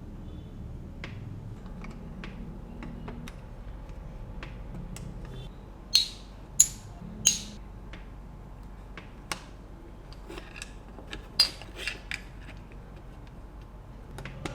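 Plastic building bricks being handled and pressed together, giving scattered small clicks. Three sharp, loud snaps come about six to seven seconds in, and another about eleven seconds in.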